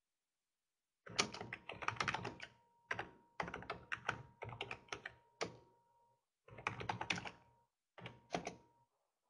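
Computer keyboard typing: quick runs of key clicks in several bursts with short pauses between them, starting about a second in.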